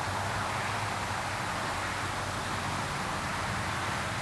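Steady outdoor background hiss with a faint low hum underneath; no distinct events.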